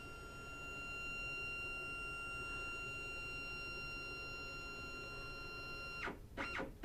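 Stepcraft CNC's stepper motor running at constant speed as it drives the axis along its lead screw, a steady high-pitched whine that stops about six seconds in. A few short, sharp sounds follow near the end.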